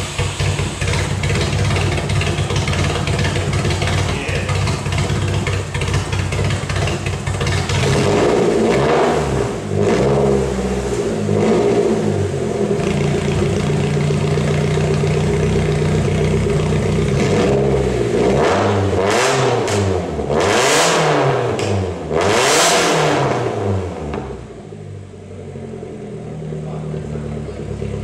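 Nissan SR20DE inline-four in an S14, freshly swapped in and just started, running through short blast pipes. It idles, is revved in a few throttle blips that rise and fall, and settles back to a quieter idle near the end.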